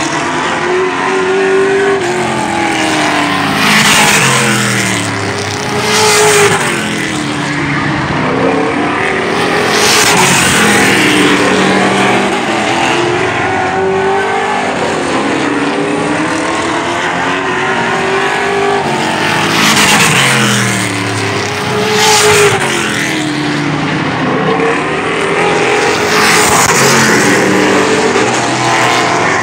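Race car engines lapping an oval track. The pitch rises and falls as the cars rev through the corners, and the sound swells loudly each time a car passes close, several times over.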